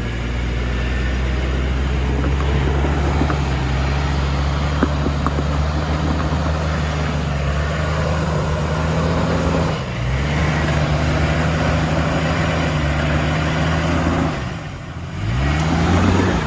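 Off-road vehicle's engine pulling steadily at low revs as it crawls over rocks. The revs sag briefly about ten seconds in, drop again near the end, then rise as the throttle is pressed again.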